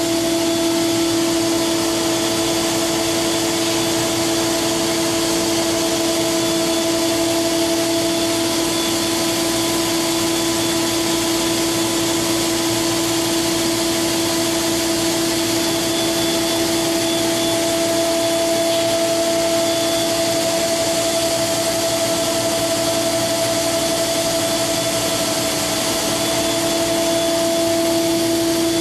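The HSK 63 spindle of an Okuma MCR-B II's 5-axis universal head running steadily at its maximum 20,000 RPM: a steady whine at one pitch over a strong hiss.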